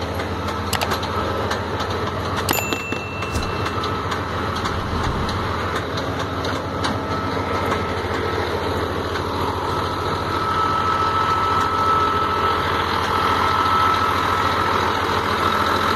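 Scania 114 truck's diesel engine running steadily, with a steady whine that grows louder about ten seconds in. A short high beep sounds about two seconds in, and a few light clicks come in the first seconds.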